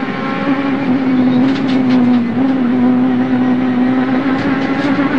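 Rally car engine heard from inside the car, held at high revs on a special stage. The note sags slightly about two seconds in and then holds steady. A few brief rattles come through around one and a half and four and a half seconds in.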